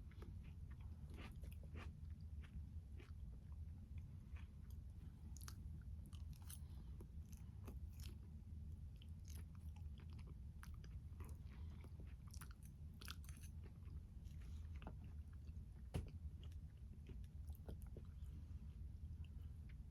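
A person chewing and biting a tomato, peach and basil salad: faint, irregular mouth clicks and crunches, with one sharper click about three quarters of the way through.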